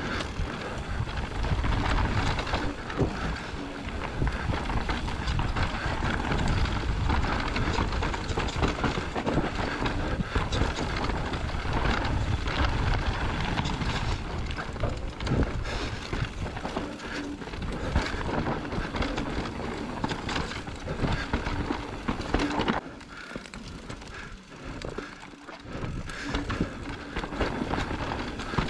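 Trek Rail electric mountain bike running fast down a rough dirt and loose-stone trail: tyres rumbling and crunching over rocks, with constant knocks and rattles from the bike over the bumps, and wind buffeting the microphone. The noise eases off for a few seconds near the end.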